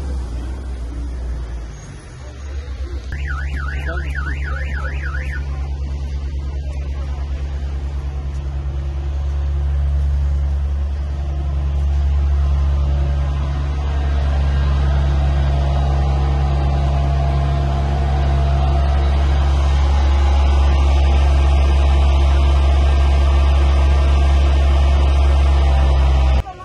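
Fire engine's diesel engine running close by with a loud, steady low drone; a few seconds in, a siren gives a brief rapid warble. The drone stops abruptly near the end.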